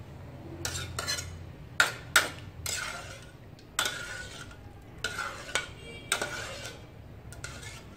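A metal ladle stirring and scooping cauliflower florets in a metal wok, scraping and clanking against the pan at irregular intervals, with two sharp clanks about two seconds in.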